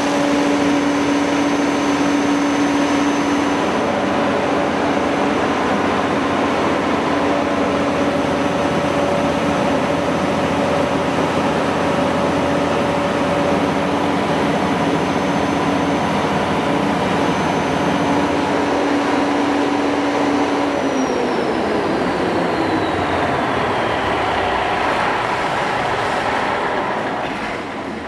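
Volvo TAD1363VE inline-six diesel engine of a 240 kW generator set running steadily with a constant whine. About three-quarters of the way through, the whine falls steadily in pitch as the engine is shut down and winds down, and the sound drops off near the end.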